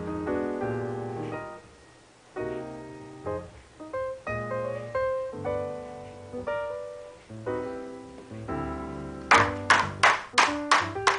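Piano music, with single notes and chords that ring and fade away. In the last two seconds, a quick run of about eight sharp taps, roughly four a second, louder than the piano.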